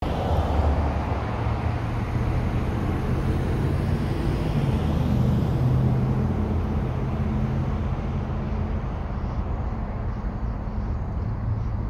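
A low, steady engine drone with a faint rumble, shifting slightly in pitch about halfway through.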